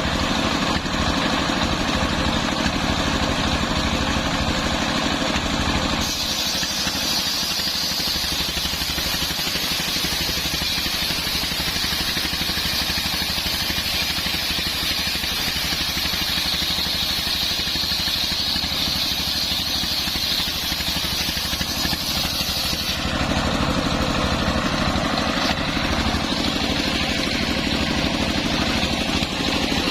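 Homemade engine-driven circular sawmill running, its blade cutting through a coconut-palm log from about six seconds in until about seven seconds before the end, with a loud high hiss of the cut, then spinning free again.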